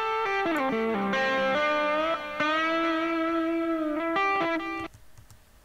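Electric lead guitar solo playing back through a compressor set at about 4:1, with its threshold being pulled down. It plays a phrase of single notes that slides downward, then a long held note, a few quick notes, and breaks off about a second before the end.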